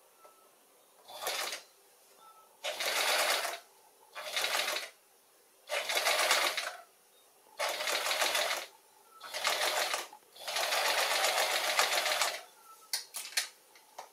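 Domestic sewing machine stitching straight quilting lines through layered fabric, running in about seven short stop-start bursts with pauses between, the last one the longest at about two seconds. A few quick clicks near the end.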